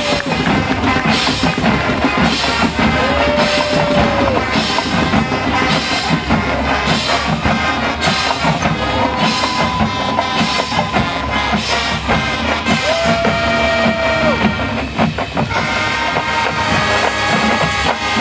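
Marching band playing: brass holding long notes over a steady drumline beat. About fifteen seconds in the music briefly thins, then swells into a fuller held chord.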